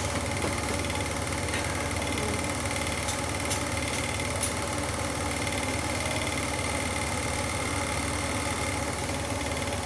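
Steady mechanical hum and whir with a faint high-pitched whine, unchanging throughout; a few faint clicks in the first half.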